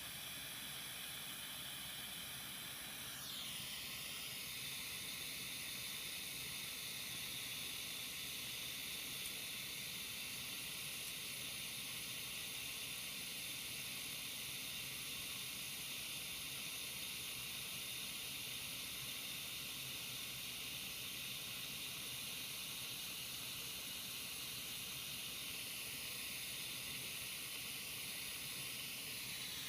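Dremel Versatip 2000 butane soldering iron burning with a steady gas hiss. The hiss changes and turns brighter about three seconds in, then holds steady.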